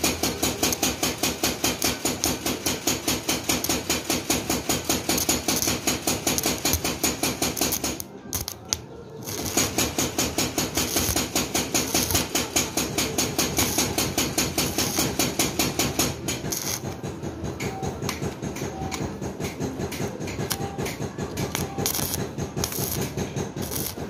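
Stick (arc) welding on a steel hammer head: the electrode's arc crackles with a fast even pulsing, about five a second. It breaks off about eight seconds in and strikes again about a second later.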